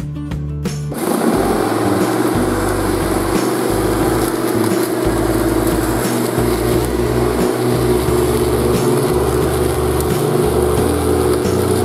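Bosch Rotak 32 electric rotary lawn mower running steadily while cutting grass, a steady motor and blade hum with the rush of grass being cut, on a freshly sharpened blade. It comes in abruptly about a second in, after a moment of guitar music.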